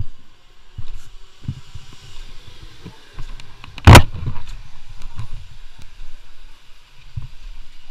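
Go-kart being pushed by hand with its engine off: scattered low bumps and rumbles from the rolling chassis, and one loud sharp knock about four seconds in as it is handled.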